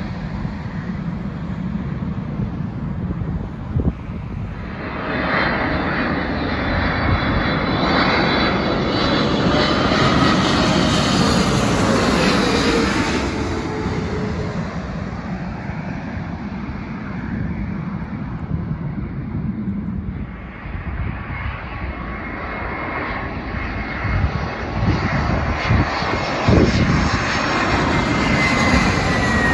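Jet airliners on final approach passing low overhead, their engine noise swelling to a loud peak with a downward-gliding whine, then fading. It builds again near the end as the next jet comes in.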